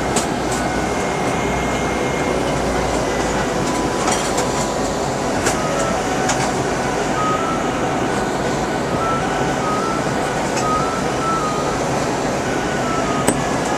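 Steady cabin noise of an Airbus A321 in flight: an even rush of engine and airflow noise. From about five seconds in, a faint run of short high notes steps up and down.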